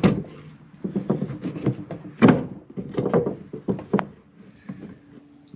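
Water bowl being handled and set into the circular hole cut in the insulator's top piece for a test fit: a run of knocks and thunks as it bumps against the edge, the loudest about two seconds in. The hole was cut too big for the bowl.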